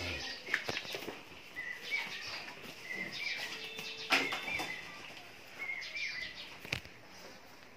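Small birds chirping, short rising chirps repeated every half second or so through the middle, with a few sharp knocks and clicks in between, the loudest about four seconds in.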